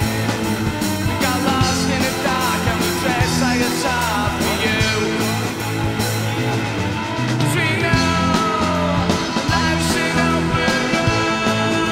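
Rock band recording playing: a steady drum beat and bass under a higher line that glides up and down in pitch.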